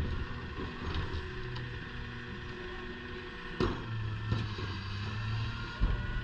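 Rear-loader garbage truck running at the curb: a steady engine hum with a higher whine over it, and two sharp bangs, one a little past halfway and one near the end.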